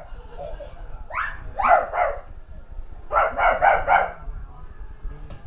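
A dog barking: three barks, then a quick run of about five barks about three seconds in.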